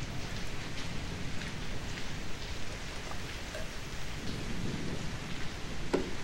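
Steady hiss of noise with a low rumble underneath and scattered faint ticks; one sharper tick comes near the end.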